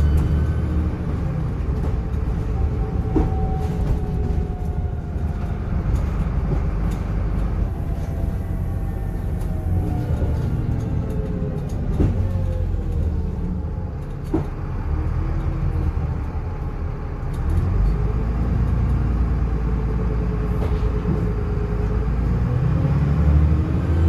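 Dennis Trident double-decker bus on the move, heard from inside on the upper deck: a deep engine rumble with a turbo whistle and engine whine rising and falling as the bus accelerates and slows. There are a few sharp knocks and rattles from the body along the way.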